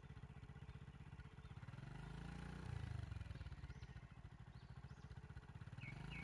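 A vehicle engine idling steadily, a low pulsing hum that swells for a moment about halfway through, with a few faint bird chirps.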